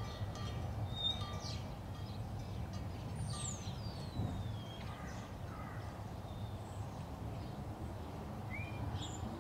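Ambient soundscape: a steady low hum and hiss under scattered high bird-like chirps, with one long falling whistle about three seconds in and a short rising chirp near the end.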